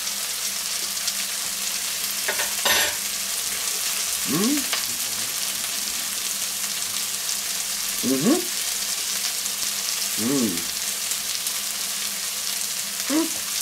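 Sliced onions sizzling as they sweat in a nonstick wok, a steady frying hiss. Over it, four short pitched squeaks rise and fall at intervals, and there is one brief click a few seconds in.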